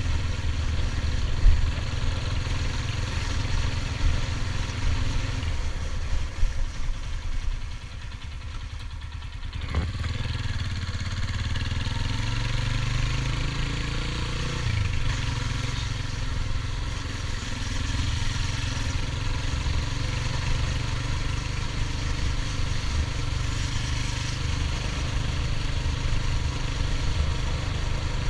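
Stallion Centaur 250 Max motorcycle engine running under way, with a steady hiss over it. The engine eases off about eight seconds in, and its pitch rises again a few seconds later as it picks up speed.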